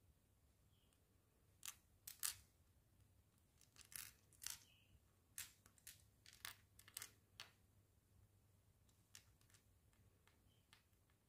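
Mini plastic building bricks clicking as they are pressed together and picked from a loose pile of pieces: a scattered run of short, sharp clicks, thickest in the middle and thinning out near the end.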